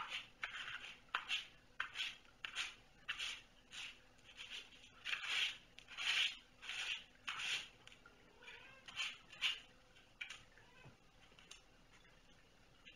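A cat licking and grooming: short rasping tongue strokes, about two a second, that stop a few seconds before the end.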